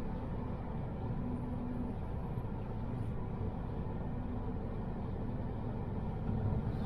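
A car driving along the road: a steady low rumble of engine and tyres, growing a little louder near the end.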